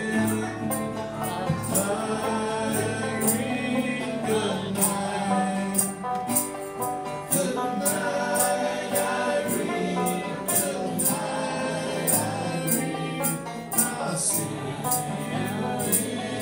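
Live acoustic band playing an old-time song: banjo and acoustic guitar with a male voice singing, over a steady percussion beat of about two strokes a second.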